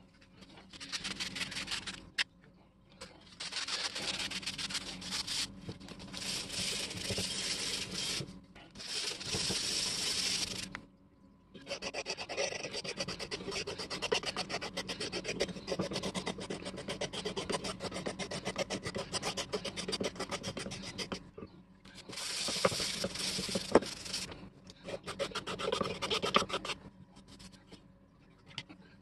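Wood rasp filing a hardwood handle: quick rasping strokes in several bouts separated by short pauses, with a couple of sharp knocks.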